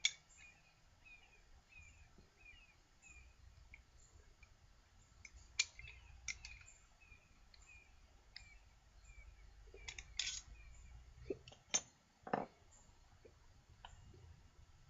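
Scattered light clicks and clinks of a small Sargent block plane's metal parts being loosened, handled and set down as it is taken apart, with a cluster of sharper clicks near the end.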